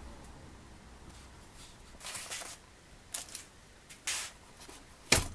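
Wood being handled at a bench: a few short scrapes and knocks, with the loudest, sharpest knock just before the end.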